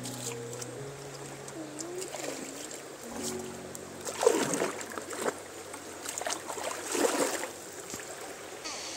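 Two bursts of water splashing in a stream, about four seconds in and again around seven seconds, over soft background music with held notes.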